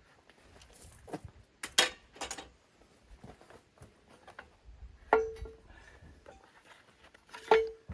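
Scattered clinks and knocks of metal parts and tools being handled. Two louder clanks, about five seconds in and near the end, ring briefly like struck steel.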